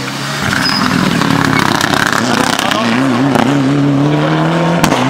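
Rally car passing at speed with its engine under full throttle. Its note wavers briefly, then climbs steadily as the car pulls away, with one sharp crack near the end.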